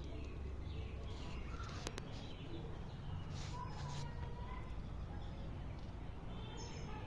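Birds calling faintly and intermittently over steady low background noise, with two sharp clicks about two seconds in.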